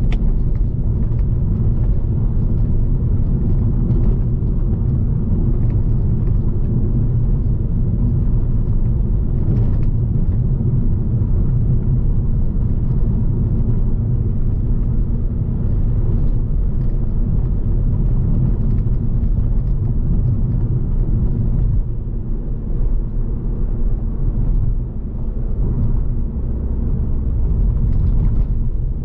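Cabin drive noise of an Alfa Romeo Giulietta's 1.75 TBi turbocharged four-cylinder petrol engine and its tyres on a rough, bumpy road: a steady low rumble broken by a few short knocks as the car goes over bumps. The rumble eases a little for a few seconds before the end.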